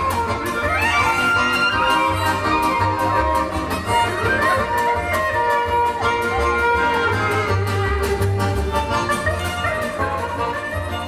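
Klezmer band playing live: clarinet and violin carry the melody over a plucked double bass and a strummed acoustic guitar, with a steady beat.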